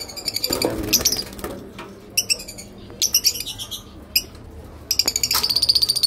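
Caged parrots calling: a series of short, sharp chirps and squawks, ending in a rapid chattering run near the end.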